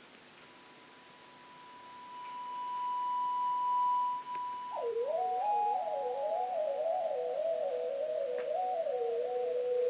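Electronic music: a single pure, steady tone swells in and holds, then gives way about five seconds in to several wavering, sliding tones weaving up and down around each other, a theremin-like sound.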